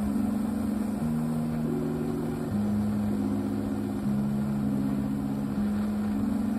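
Background music: sustained low chords that change about every one and a half seconds.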